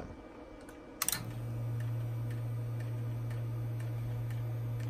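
A sharp click about a second in as a lineman's butt set goes off-hook on speaker, then a steady low hum over the butt set's speaker on the line of a Western Electric 6A dial intercom, with faint regular ticking.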